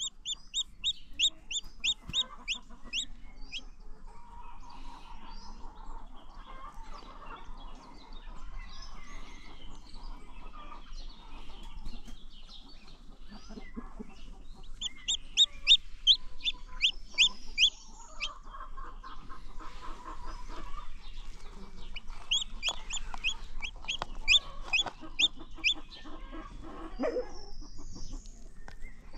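Chicks peeping in quick runs of short, high peeps, several a second, that come and go, over the low clucking of a broody hen.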